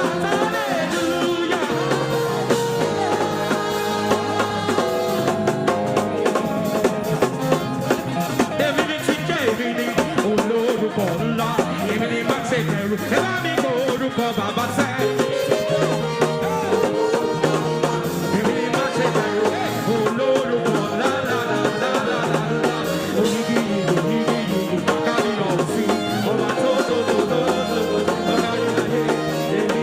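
Upbeat gospel praise music from a band, a drum kit keeping a steady beat over a stepping bass line.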